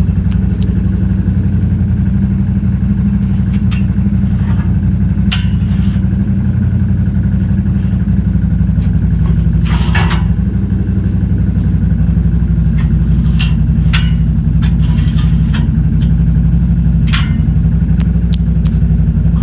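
An engine running steadily at an even pitch, with scattered sharp clicks and knocks over it, the loudest about ten seconds in.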